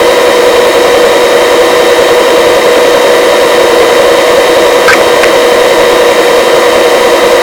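Rescue helicopter in flight, heard through the crew intercom: a loud, steady rushing noise with a constant whine, and two short faint clicks about five seconds in.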